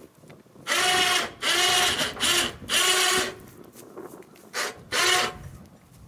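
Rugcel electric winch on a log crane running in six short start-stop bursts, a steady motor whine in each, hoisting a log held in logging tongs.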